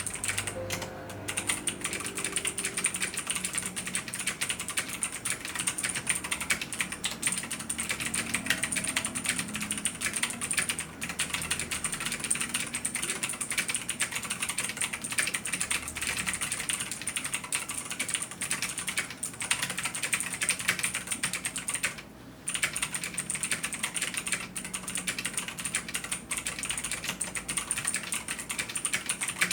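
Continuous fast typing on a Ducky x Razer One 2 RGB mechanical keyboard with Razer Green clicky switches: a dense stream of sharp key clicks that breaks off briefly about 22 seconds in.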